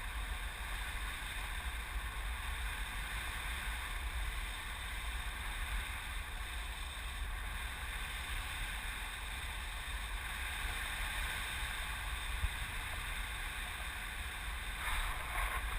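Wind rushing over the microphone during a tandem paraglider flight: a steady low rumble with a hiss, briefly louder near the end.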